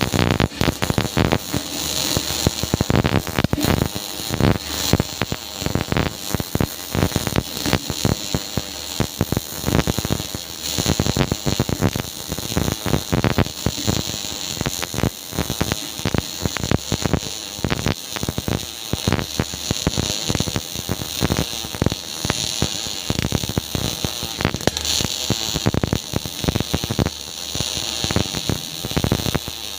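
MIG welding arc crackling steadily, a dense rapid sputter that keeps on without a break, over a steady low hum.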